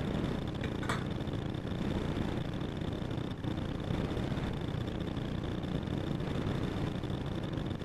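A steady mechanical hum with a thin high whine over it, and a short light click about a second in.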